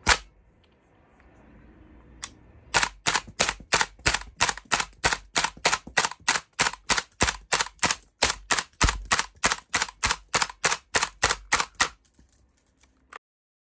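Tanio Koba M4 model gun firing cap-loaded cartridges: a single shot, then a long quick string of sharp cap reports, about four a second, that stops about twelve seconds in, followed by a faint click.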